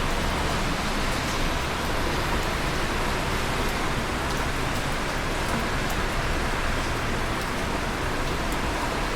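Busy traffic on wet roads below a tower-block rooftop: a steady hiss of tyres on wet tarmac mixed with falling rain, with scattered drips landing on concrete.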